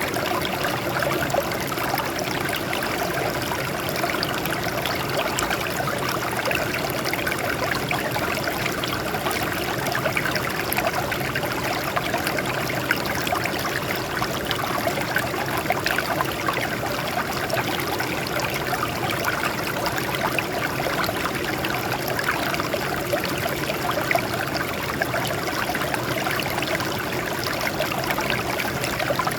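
Water running steadily over rocks, a continuous even rush with many small splashes throughout.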